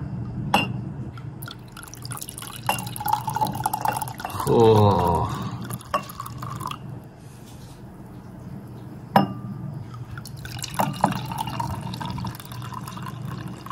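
Wine being poured into a glass, with a few sharp clinks of glass.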